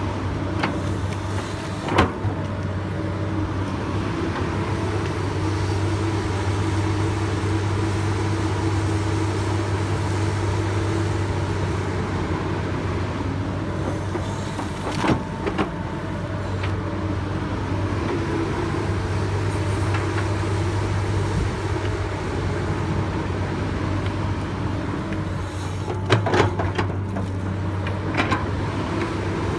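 Komatsu PC200 hydraulic excavator's diesel engine running steadily under load as it digs wet mud, with a steady low hum. A few sharp knocks cut through, about two seconds in, around fifteen seconds and again near the end.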